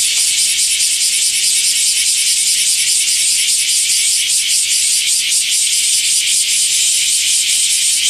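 Bear cicada (Cryptotympana facialis, kumazemi) singing: a loud, high-pitched buzz that pulses in a fast, steady rhythm.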